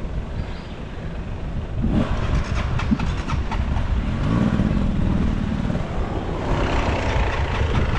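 Dirt bike engine running, with a brief rev about halfway through and scattered clicks and knocks at about two to three and a half seconds.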